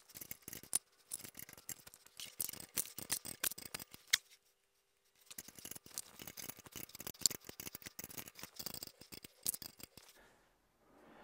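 Rapid, irregular small clicks from a caster on a quilting frame's leg being turned and adjusted by hand to level the frame, pausing for about a second midway.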